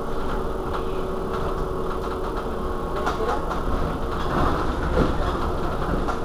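Irizar ie tram electric bus standing at a stop: a steady hum with a low rumble and a few held tones, with faint clicks now and then.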